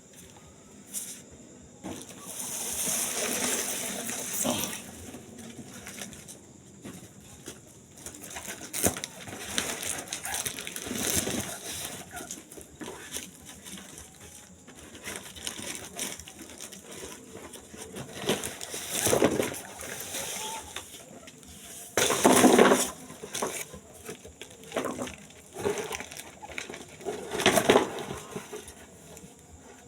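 Pigeons cooing amid irregular noisy bursts, the loudest a little after the middle and near the end.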